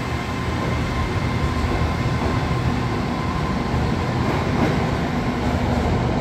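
SRT Red Line electric commuter trains (Hitachi AT100 units) moving through the station: a steady rumble of wheels on rail with a low motor hum, as one train pulls out and another comes in toward the platform.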